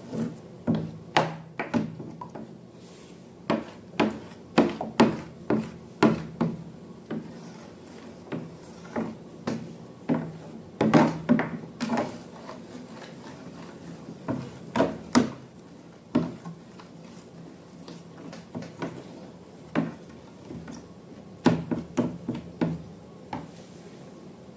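Irregular short taps, clicks and rubs of hands handling slime-making materials and containers, over a faint steady low hum.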